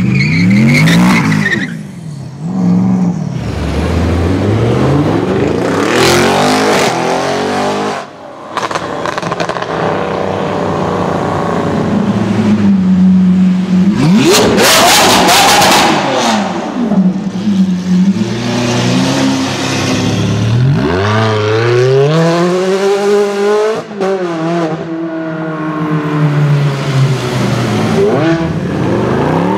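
Supercar engines revving and accelerating one after another, in cut-together clips. The revs rise and fall repeatedly: a Gumpert Apollo at the start, a Lamborghini Aventador's V12 with a loud burst of revs in a tunnel around the middle, and a Ferrari V8 near the end.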